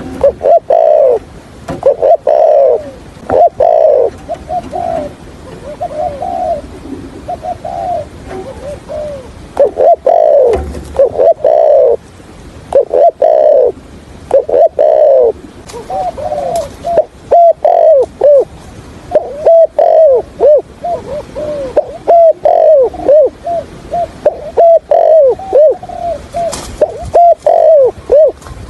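Spotted dove cooing over and over: phrases of low coos, each note dropping in pitch. From about halfway through they break into quick runs of short notes, the stuttering coo ('gù cà lăm').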